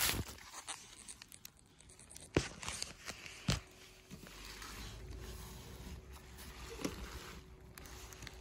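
Handling noises while a street lantern is unboxed: soft rustling and scraping with a few sharp clicks, about two and a half seconds in, three and a half seconds in, and near seven seconds.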